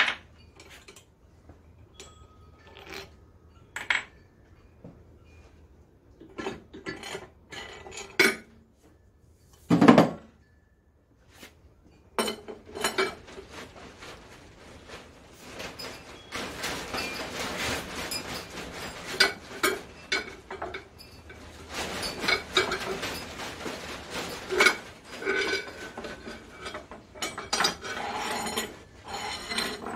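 Metal parts clinking and clanking as a shop-built puller is worked off and the wet cylinder sleeve comes out of an antique IHC Type M engine. Scattered knocks give way to one heavy thump about ten seconds in, then a long busy run of metal clinks and rattles.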